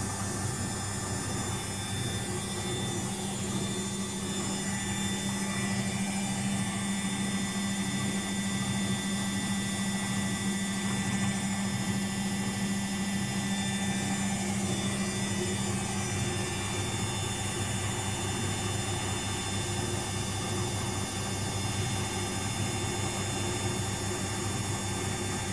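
Luxor WM 1042 front-loading washing machine spinning at 800 rpm with an unbalanced load: a steady motor hum and drum whine that holds even throughout.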